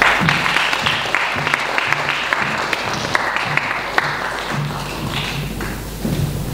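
Audience applauding, the clapping dying away after about four seconds, with music playing underneath.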